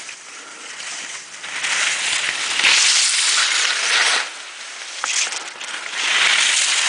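Skis carving through crusty snow: a scraping hiss that swells twice, first for about two and a half seconds, then again near the end.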